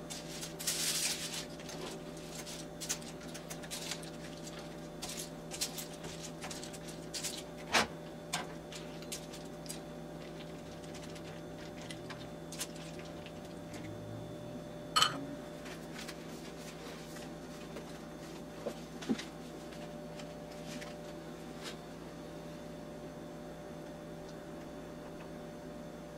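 Spatula stirring and scraping through noodles and sauce in a nonstick frying pan: scattered light clicks and taps against the pan, with sharper knocks about 8 and 15 seconds in. The stirring stops after about 20 seconds, leaving a steady low hum.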